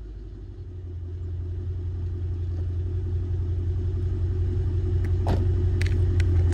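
Supercharged 5.4-litre V8 of a Mercedes CL55 AMG idling through longtube headers, catalytic converter delete and Borla mufflers, a deep steady rumble that grows gradually louder. A few light clicks sound near the end.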